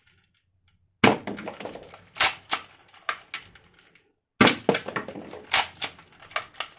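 Sharp plastic clicks and knocks of a toy foam-dart revolver being handled and loaded, darts pushed into its cylinder. They come in two runs, starting about a second in and again after a short pause past the middle.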